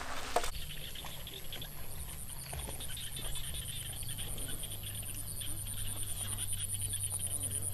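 Open-field evening ambience: a steady very high-pitched insect drone with a fast, evenly pulsing chirp over it, scattered higher chirps, and a low steady hum underneath. For the first half second, before it, hands rustle and squish shredded vegetables in a steel bowl.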